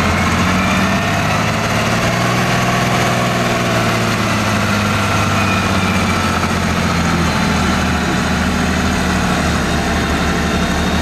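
Same Antares 110 tractor's diesel engine running hard under load, pulling a weight-transfer sled. The sound is loud and steady, and its pitch sags and recovers slightly as it goes.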